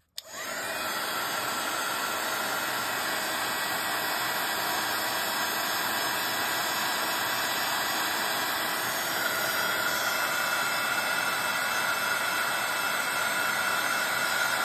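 Handheld craft heat tool switched on and blowing a steady hiss of hot air, with a faint whine from its fan that grows a little stronger about nine seconds in. It is drying the ink on a die-cut paper piece.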